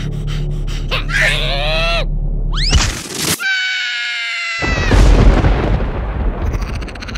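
Cartoon sound effects and a cartoon larva's voice: a falling cry and a long high-pitched scream, then a loud boom about five seconds in.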